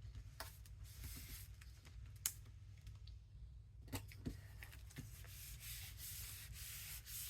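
Hands rubbing and handling paper on a small journal cover: faint rubbing with a few light clicks, one sharp click about two seconds in, and a steadier rubbing hiss near the end.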